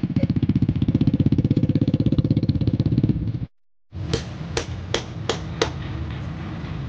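Small motorcycle engine running close by, a loud, rapid, even putter. After a sudden cut, a motorcycle engine runs more quietly, with five sharp clicks in quick succession.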